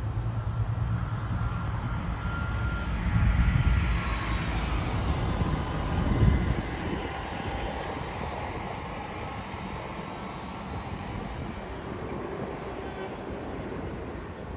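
Low vehicle rumble that swells to a peak about six seconds in, then settles to a quieter steady hum.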